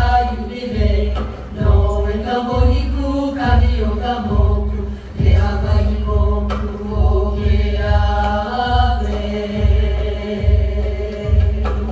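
Polynesian dance music: chanted vocals in unison over a steady, deep drum beat.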